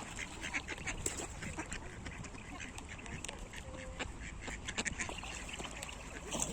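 A mixed flock of ducks and geese calling, many short quacks overlapping at irregular intervals over a steady background noise.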